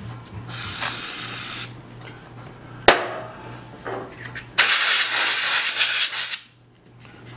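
Aerosol brake cleaner sprayed through its straw in two bursts: a short hiss about half a second in, and a longer, louder hiss of about two seconds past the middle. A single sharp click comes between them.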